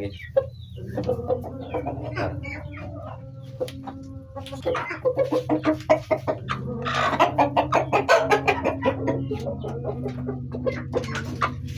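Bangkok chickens clucking in a string of short, irregular calls, with a louder, noisier stretch about seven seconds in.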